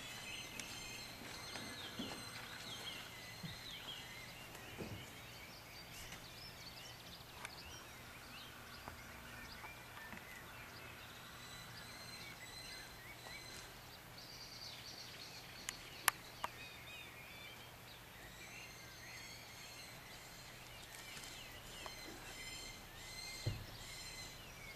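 Faint rural outdoor ambience with wild birds chirping and whistling throughout, a few sharp clicks about two-thirds of the way through, and a dull thump near the end.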